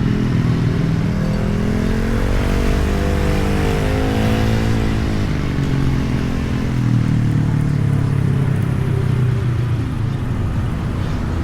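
Motorcycle engine heard through a microphone inside the rider's helmet: it climbs in pitch as the bike accelerates, eases off about halfway through, then runs steadily at lower revs, under a constant rush of wind and road noise.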